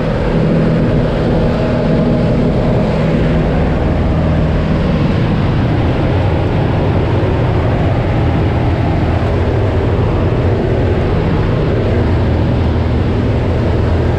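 Propeller-driven aircraft engine droning steadily, heard from inside a small plane's cabin. Its pitch settles lower about five seconds in.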